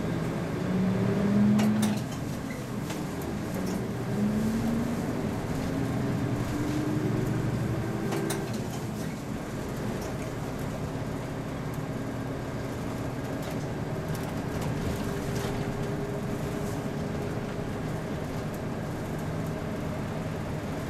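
Route bus's diesel engine heard from inside the cabin, pulling with its pitch climbing, dropping about two seconds in and again about eight seconds in, then running steadily.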